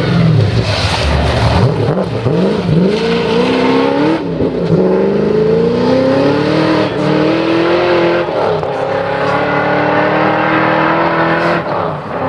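1968 Chevrolet Corvette C3 rally car's V8 engine at high revs. It revs up and down unevenly in the first two seconds, then pulls hard through the gears, the pitch climbing and dropping at each upshift about four and eight seconds in.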